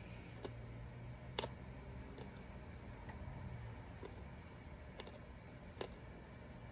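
Faint sharp clicks roughly once a second over a low steady hum.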